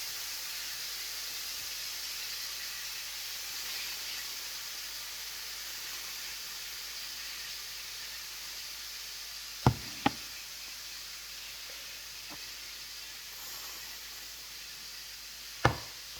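Food frying in a pan with a steady sizzle. Two sharp knocks come about ten seconds in, close together, and another near the end.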